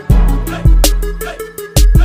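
Background music with deep, sustained bass notes and a steady drum beat.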